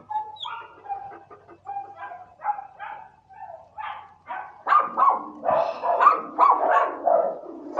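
Shelter dogs barking in a kennel: a run of short, pitched barks, fainter at first and growing louder and faster about four and a half seconds in, at around three a second.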